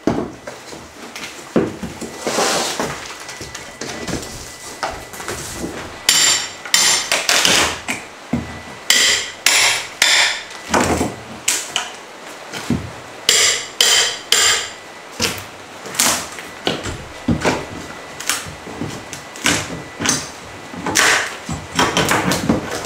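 Hammer blows and metal-on-metal clanks from tearing out kitchen cabinets and flooring: irregular strikes in quick runs of about two a second, many with a bright ringing.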